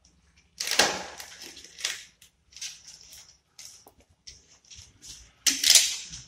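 Irregular crinkling and rustling as hands work the taped refrigerant pipe and cable bundle at the back of a split air conditioner's indoor unit. There are two louder crunches, about half a second in and again near the end.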